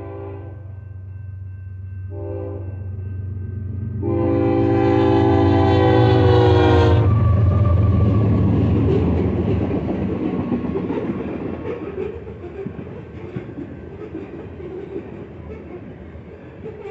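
Canadian Pacific diesel locomotives sounding their multi-chime horn: a blast ending about half a second in, a short blast around two seconds, then a long blast that cuts off about seven seconds in, over the running diesel engines. The lead units then pass and the train rumbles by with wheels clattering on the rail joints.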